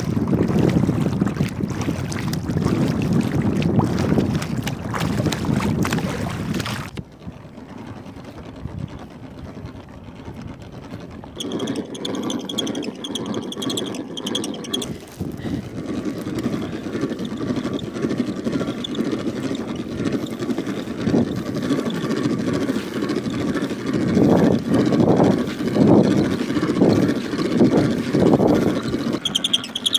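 Wind rushing over the microphone and water sloshing as a homemade styrofoam fishing kayak is paddled at sea. About seven seconds in the wind noise drops suddenly; a faint high wavering chirp comes in, and near the end there are irregular knocks and rustles of fishing gear being handled on the kayak.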